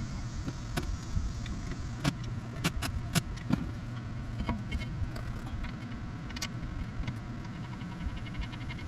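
Scattered sharp metallic clicks and clinks, most of them bunched between about two and four seconds in, over a steady low hum.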